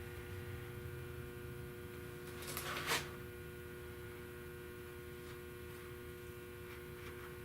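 Steady electrical hum with a low rumble underneath, and one short noise swelling and stopping about three seconds in.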